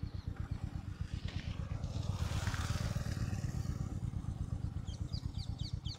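A motorcycle engine running at low speed with a steady, even low pulsing. There is a louder rush of noise about two to three seconds in, and a few short bird chirps near the end.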